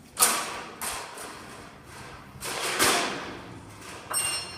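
A series of sharp knocks and clanks, four or five in a few seconds. The last one carries a brief high metallic ring.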